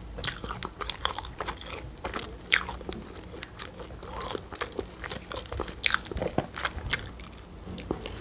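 A person chewing a soft bun with curd-cheese filling close to the microphone: irregular wet mouth clicks and smacks.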